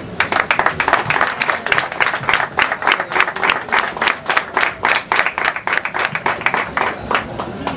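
A small group of people applauding with quick, steady hand claps that die away near the end.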